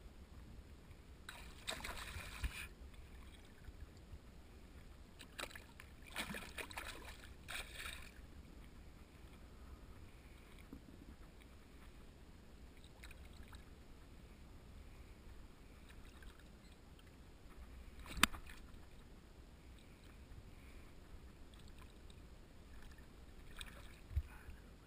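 Faint water splashing and sloshing from a large hooked fish thrashing at the surface close under the angler, in a few short noisy spells. A sharp knock comes about 18 seconds in, and another near the end during a splash.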